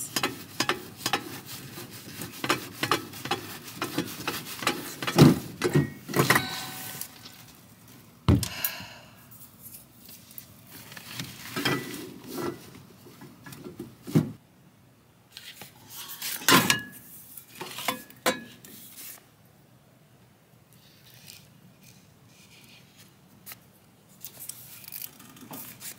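Irregular clanks, knocks and rubbing of metal stove parts as an empty one-pound propane cylinder is changed on a camp stove's regulator. The loudest knocks come about five, eight and sixteen seconds in, and it goes quieter near the end.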